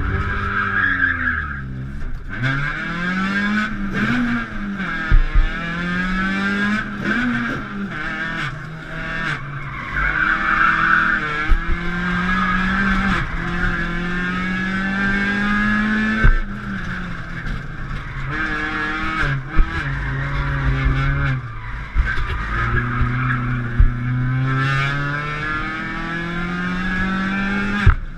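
A rally car's engine heard from inside the cabin, revving up and falling back again and again as it accelerates, shifts gear and slows for corners, with tyres squealing at times and several sharp knocks.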